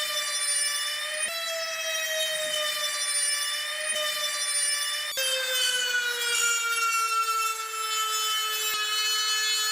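High-speed electric power tool whining steadily, its pitch slowly sagging as it is pressed into the work, with brief jumps back up about a second in and about five seconds in.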